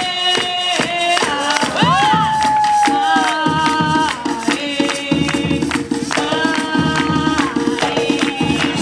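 Upbeat dance music with a singing voice holding long notes, some sliding in pitch, over a steady beat.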